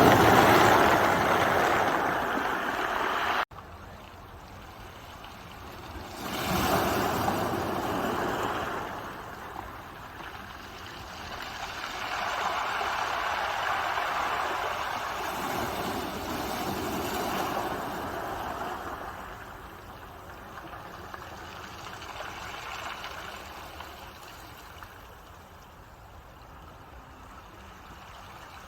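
Ocean waves washing in, the surf swelling and falling away every few seconds. The level drops abruptly about three and a half seconds in, then the waves build again.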